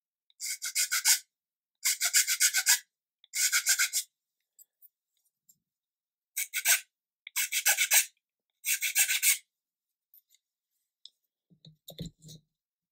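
A hand file rasping against the edge of a small laser-cut MDF part, in six short bursts of strokes, smoothing off the nibs left at the laser-cut attachment points. Near the end come a few soft knocks as parts are handled on the cutting mat.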